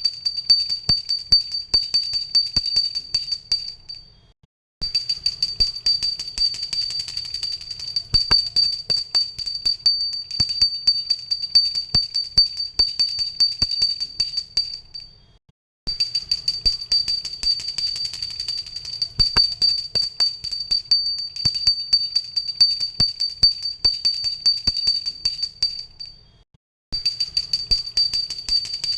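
Pooja bell rung rapidly and continuously, many strokes a second, with a clear high ring. The ringing stops three times, about 4, 15 and 26 seconds in, dies away within a second, and starts again.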